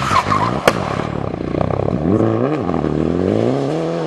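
Citroën DS3 rally car's engine accelerating out of a bend and away. A single sharp crack comes at the start. About two and a half seconds in the revs rise and drop quickly at a gearshift, then climb steadily again.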